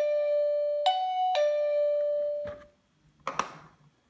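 Plug-in wireless doorbell receiver playing its two-note ding-dong chime, high then low, twice over, rung by its paired wireless push button. The last note fades out about two and a half seconds in, followed by a couple of light clicks.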